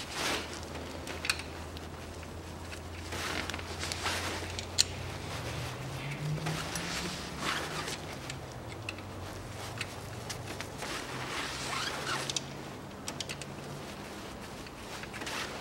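Hand tools working on an engine's crankshaft pulley and its bolt: several short rasping runs, like a ratchet being worked, and a few sharp metallic clicks.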